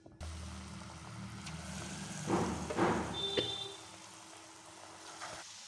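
Pakora batter of ground chana dal and semolina dropped into hot refined oil and sizzling, in two bursts a little over two seconds in, over a low steady hum that stops a little past halfway. A short click comes just after the bursts.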